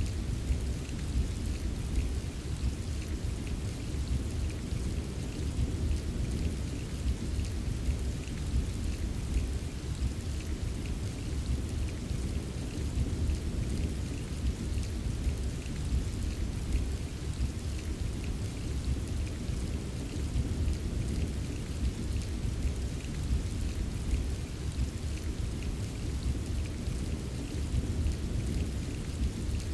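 Steady rain with fine pattering drops over a continuous low rumble.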